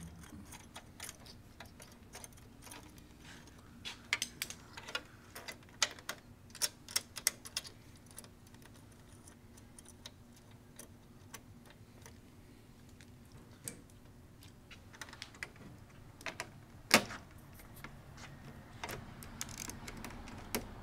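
Irregular metallic clicks and clinks from a 10 mm wrench and socket working the nuts on the steel mounting plates of a scooter trunk base as the bolts are tightened. The clicks come thickest in the first half, with one louder knock about 17 seconds in.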